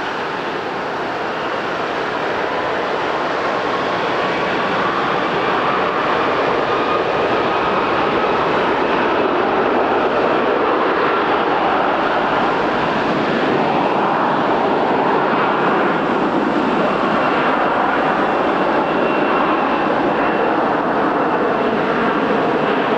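Widebody airliner's jet engines running at high power: a steady rushing roar with a whine that climbs slightly, growing louder over the first several seconds and then holding.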